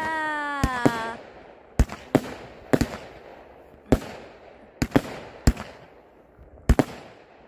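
Aerial fireworks bursting overhead: about a dozen sharp bangs at irregular intervals, some in quick pairs. A drawn-out tone, falling slightly in pitch, sounds during the first second.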